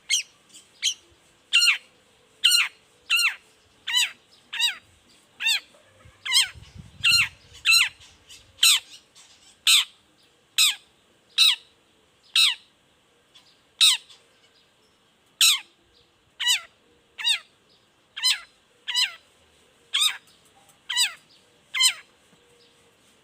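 Long-tailed shrike (cendet) giving its repeated "toet" call: a long series of short notes, each falling quickly in pitch, about one a second with some in close pairs.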